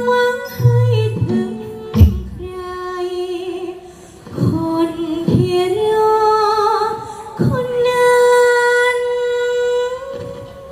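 Likay singing: long, drawn-out held notes that waver slightly in pitch, over a Thai ensemble accompaniment. A few sharp percussion hits fall in the middle.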